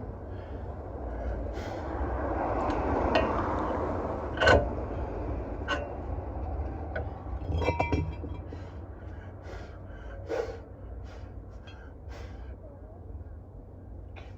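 Torque wrench tightening wheel hub assembly bolts to about 45–50 foot-pounds: a stretch of rasping tool noise, then several sharp clicks, the loudest about four and a half seconds in.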